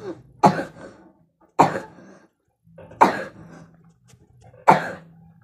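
A child coughing four times, short sharp coughs about a second or more apart.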